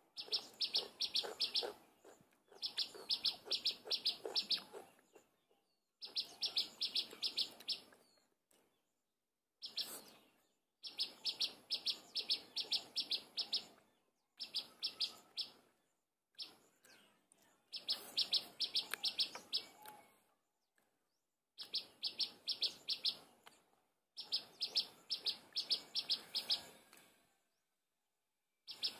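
A bird singing the same phrase over and over: each phrase a quick run of evenly spaced high notes lasting one to two seconds, with short pauses between.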